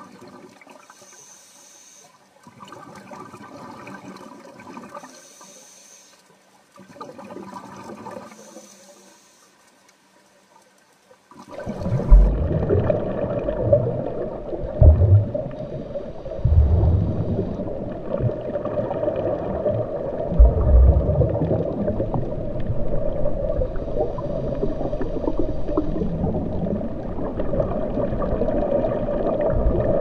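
Underwater ambience: dense, muffled water noise with repeated low thuds, starting suddenly about a third of the way in after a few faint swelling sounds.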